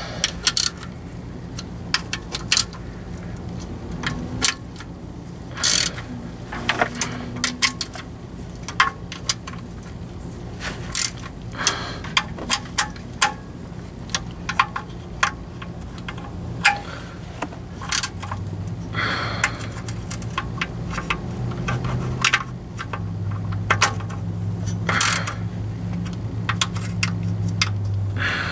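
Socket ratchet and metal tools clicking and clinking irregularly as the transmission oil pan bolts are run in against a new gasket. A steady low hum grows louder in the last third.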